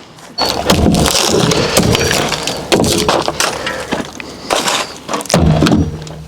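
Old wooden shed framing being torn apart: boards cracking and breaking, with repeated knocks and clatter of wood.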